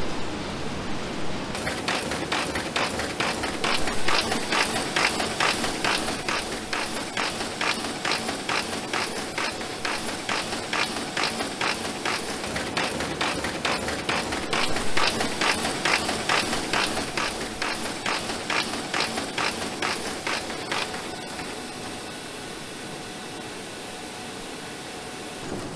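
Bindery machine feeding folded signatures, running with a fast, even mechanical clatter. Near the end the clatter stops and a quieter steady machine hum remains.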